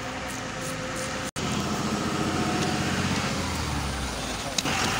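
Steady outdoor street noise with indistinct voices in the background, broken by a brief total dropout about a second and a half in. A single sharp click comes near the end.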